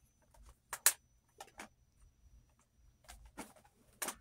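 Sharp clicks and taps of makeup palettes and compacts being handled and set down, half a dozen or so, the loudest about a second in.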